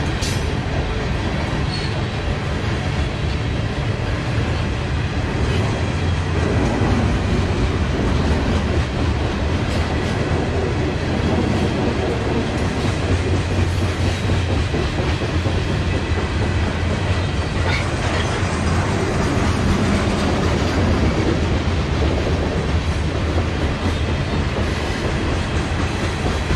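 Coal train cars rolling past on the rails: a steady, continuous rumble with the clickety-clack of wheels over rail joints.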